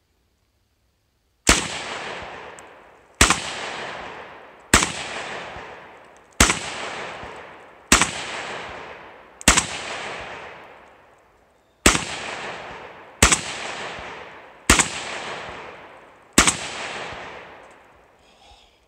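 Ten semi-automatic shots from a Russian SKS rifle in 7.62×39, fired one at a time about a second and a half apart, with a longer pause after the sixth. Each shot trails off in a long echo.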